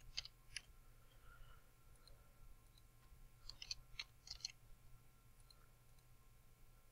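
Faint computer keyboard keystrokes and mouse clicks over near-silent room tone: a few clicks near the start, then a short flurry of them around the middle.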